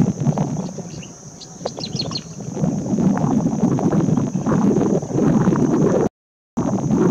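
Outdoor field ambience: a rough, rumbling noise throughout, with a few short high bird chirps about two seconds in and a steady high hiss. The sound drops out for a moment near the end.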